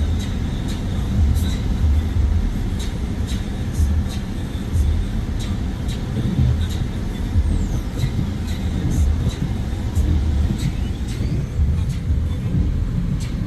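Mercedes-Benz C300 4MATIC driving on a snowy road: a steady low rumble of tyres and engine, with frequent light clicks.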